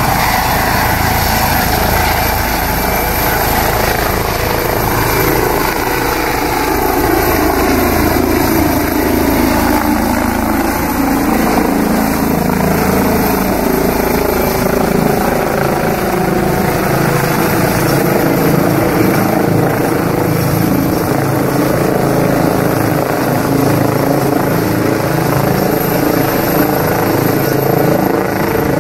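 Eurocopter EC135 air-ambulance helicopter lifting off and climbing away overhead: steady turbine whine and rotor noise, the pitch of the whine sliding down over the first ten seconds or so.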